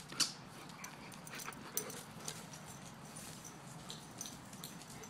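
A large dog moving about as she plays in a grassy yard: a scattered run of short, soft clicks and knocks, the loudest just after the start.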